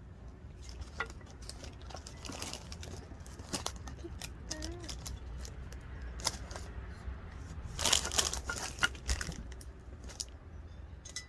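Crinkling and rustling with scattered light clicks, as things are handled; the loudest rustle comes about eight seconds in.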